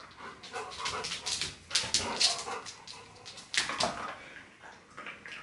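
A German Shepherd whimpering and yipping, a run of short sharp cries, loudest about two seconds in and again past three and a half seconds.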